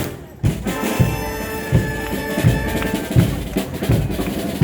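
Frevo music: brass holding sustained notes over a steady drum beat of about two hits a second, with a short drop in level just after the start.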